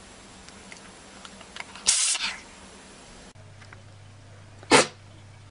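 Two short animal sneezes: a hissing one about two seconds in, and a sharper, briefer one near the end.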